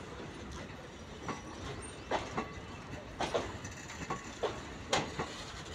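Indian Railways passenger coaches rolling past on the track: a steady rumble broken by about eight irregular, sharp clacks from the wheels on the rails.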